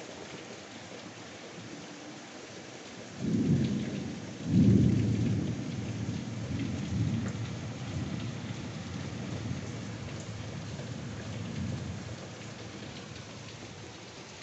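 Heavy rain falling steadily. About three seconds in, a thunderclap breaks in two quick surges, the second the loudest, then rumbles on and fades over roughly eight seconds.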